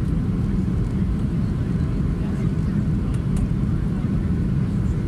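Cabin noise of a Boeing 737-700 on final approach with flaps extended: a steady low roar of engines and airflow heard from inside the passenger cabin.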